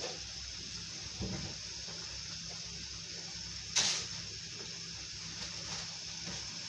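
Tap water running into a sink in a steady hiss while hands are washed, with a soft thump about a second in and a sharp knock just before four seconds in.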